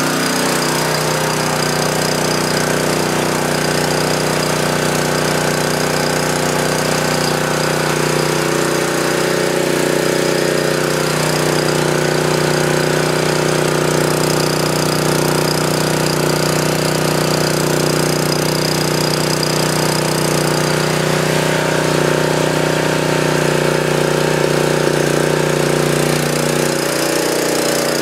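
Honda 9 HP GX-series single-cylinder four-stroke engine driving a backup generator, running at a steady speed just after a cold start. It is still on partial choke while it warms up.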